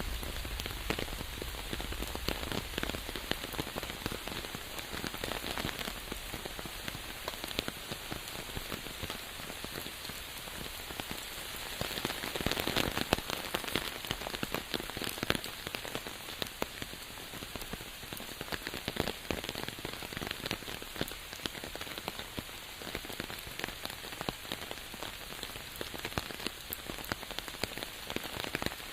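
Steady rain falling on a surface, a dense stream of separate drop hits over a constant hiss, swelling slightly about twelve seconds in.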